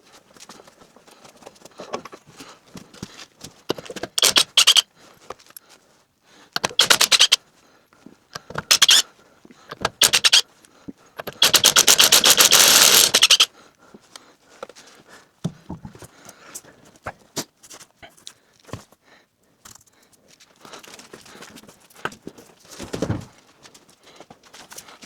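Impact wrench rattling in five short bursts, the longest about two seconds near the middle, with quieter clinks and knocks of handling between.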